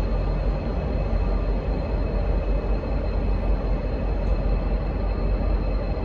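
A pair of V/Line N class diesel-electric locomotives with their engines running, a steady deep rumble that holds even throughout.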